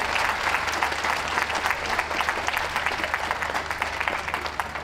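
Audience applauding, many hands clapping at once, easing off gradually toward the end.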